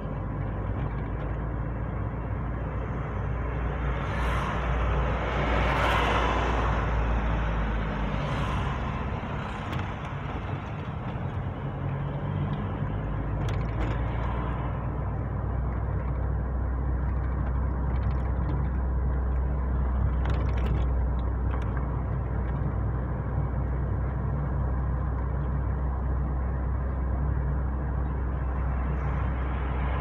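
A car being driven, heard from inside the cabin: a steady low engine and road rumble, with a louder swell of noise about five seconds in.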